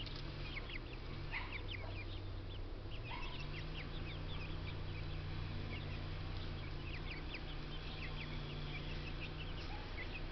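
Small dogs yapping in the distance, many short sharp yaps, over a steady low engine hum that gets louder about three seconds in.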